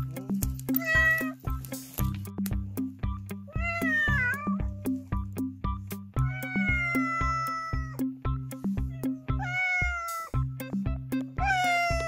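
Cats meowing: an escaped cat hidden under a shed calling back in answer to another cat's meows, about five meows, the longest lasting nearly two seconds in the middle. Background music with a steady beat runs underneath.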